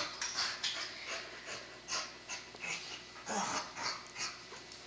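Two dogs play-wrestling, a rapid string of short dog noises and scuffles, with a louder burst a little past halfway.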